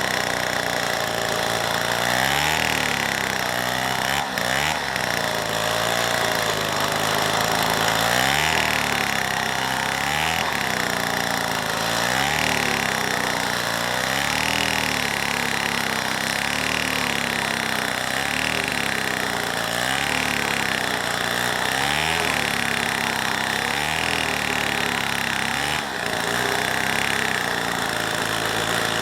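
Two-stroke chainsaw running under load while cutting wood. Its engine pitch dips and recovers about every two seconds as the saw works through the cut.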